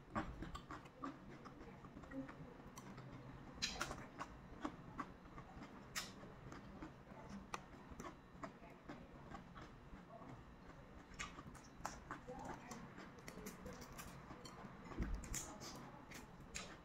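Chewing and crunching of raw cucumber slices, heard as irregular small crunches and clicks several times a second. Near the end, crackling clicks of a balut eggshell being peeled by hand.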